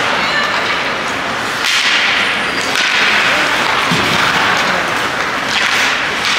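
Ice hockey play in an arena: skate blades scraping and carving on the ice, with several sudden sharp cracks of sticks on the puck.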